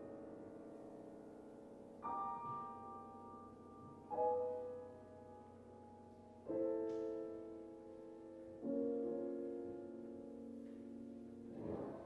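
Grand piano: four loud chords struck about two seconds apart, each left to ring and die away, then a softer chord near the end.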